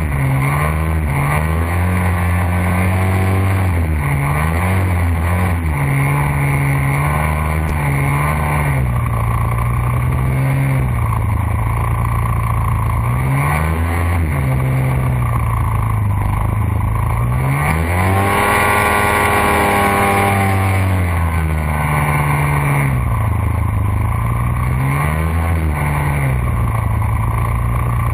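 Small recreational hovercraft's engine running close by under way, its note repeatedly rising and falling with the throttle. It revs up hardest for a few seconds about two-thirds of the way through, then drops back.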